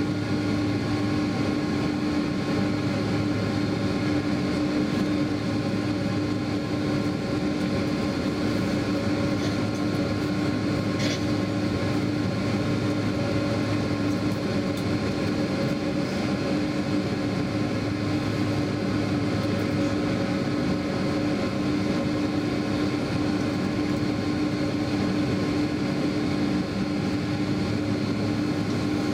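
Boeing 767 cabin noise during taxi, heard from inside the passenger cabin: a steady drone from the idling jet engines and cabin air, with a constant low hum and several fainter steady whines above it.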